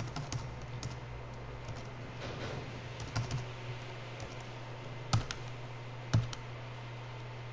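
A pause holding a steady low hum, broken by a few scattered sharp clicks about three seconds in, near five seconds and near six seconds.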